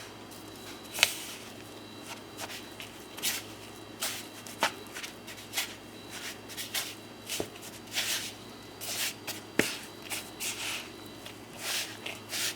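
A utensil stirring and working a crumble topping of flour, brown sugar and melted butter in a bowl. Irregular scraping and rustling, with a few sharp clicks of the utensil against the bowl.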